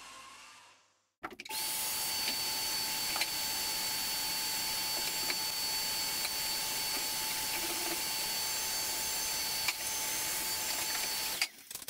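A power tool whirs down to a stop in the first second; then a wet-and-dry shop vacuum starts and runs steadily with a constant whine as its hose sucks up sanding dust, with a few sharp clicks, and cuts off just before the end.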